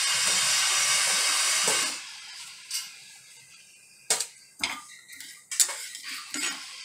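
Whole spice seeds dry-roasting in a stainless steel kadai: an even hiss for about two seconds, then a spoon stirring the seeds and knocking against the steel pan in several sharp clinks.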